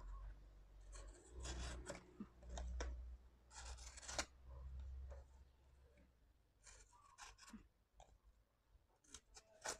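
Small pen blade of a Victorinox Swiss Compact pocket knife slicing through thin cardboard: a few faint scraping cuts in the first half, then only a few small ticks.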